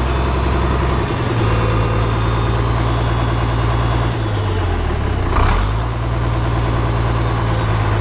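Farmall 856 tractor's 407 engine running steadily. Its speed changes slightly about a second in and again around four to five seconds in, with a short hiss about five and a half seconds in.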